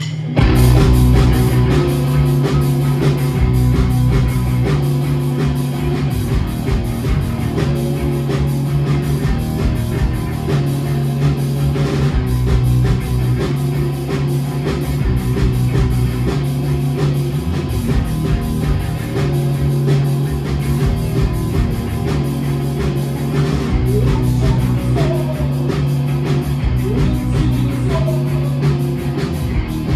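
Live rock band playing an instrumental passage: a driving bass guitar line, electric guitar and a drum kit keeping a steady, fast beat. The full band comes in abruptly about half a second in.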